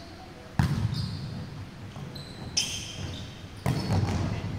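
Volleyball being struck during a rally in a reverberant sports hall. There is a sharp smack about half a second in, another near the middle and a loud one near the end, each ringing on in the hall, with brief high sneaker squeaks on the court floor in between.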